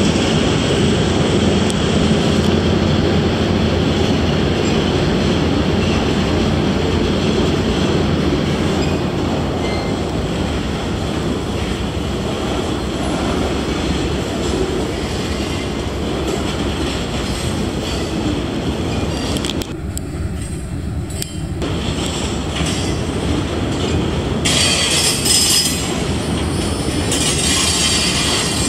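Freight train of boxcars rolling across a railway trestle bridge, a loud steady rumble of wheels on rail with clacking over the joints. High-pitched wheel squeal joins in near the end.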